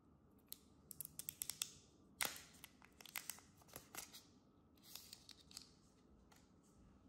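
Clear plastic protective film being peeled off an Apple Pencil (2nd generation): a run of sharp crinkling, crackling snaps for about five seconds, the loudest one about two seconds in.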